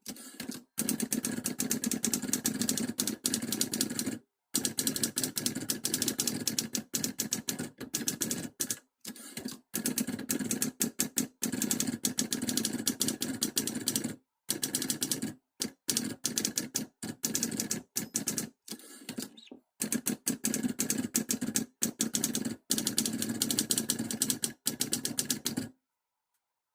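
Typewriter typing in fast, even runs of keystrokes, its carriage stepping along. The runs are broken by brief pauses, and the typing stops abruptly near the end.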